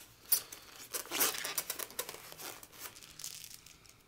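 Thin plastic packaging crinkling and rustling as it is handled, in irregular bursts, with a sharp click about a third of a second in.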